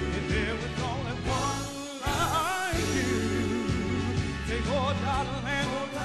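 Male soul vocal group singing a song live with backing accompaniment and a steady bass line; the sung notes waver with vibrato.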